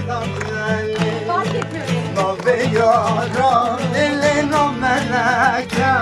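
Acoustic guitar strummed steadily, with voices singing a melody over it with marked vibrato.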